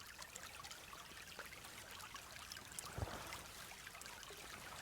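Small stream trickling, faint and steady, with a soft thump about three seconds in.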